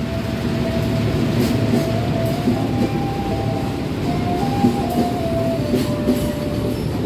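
Executive passenger coaches of the KA Sembrani Tambahan rolling along the platform as the train arrives, a steady rumble of wheels on rails. A thin squeal rides on top, stepping up and down in pitch.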